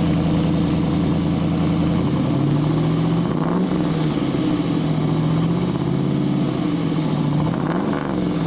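Freshly restored 1969 Camaro Z/28's 302 V8 running: a fast idle that settles lower about two seconds in, then two short blips of the throttle, one near the middle and one near the end.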